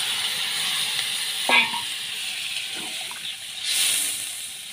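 Water poured into a hot kadai of browned duck curry, hissing and sizzling as it hits the hot oil and masala. The hiss is strongest at first and then dies down, with a brief sharp sound about a second and a half in, and the sizzle swells again near the end.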